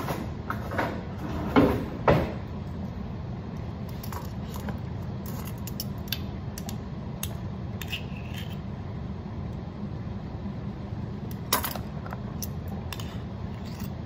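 Set of metal measuring spoons on a ring clinking and jangling as they are handled, with a few sharp clatters in the first two seconds and one more later on, over a steady low hum.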